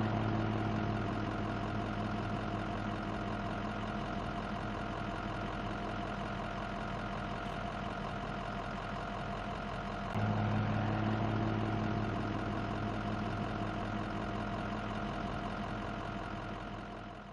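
An engine running steadily at idle, a constant hum with a deeper low note that comes in louder about ten seconds in, then fading out at the end.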